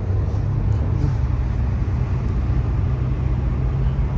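Steady low rumble of a car's engine and road noise while driving, heard from inside the moving car.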